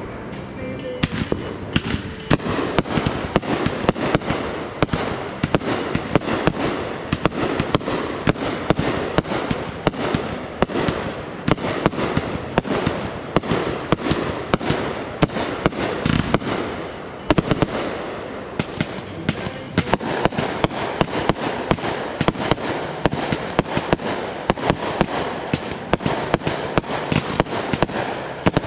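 Consumer aerial firework cakes firing a dense, continuous barrage: sharp launch thuds and aerial bursts coming several times a second with hardly a pause.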